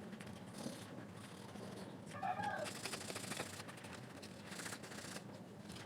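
Quick, faint scrubbing and rubbing on a plastic speaker part being cleaned, strongest about three seconds in. A short animal call sounds in the background about two seconds in.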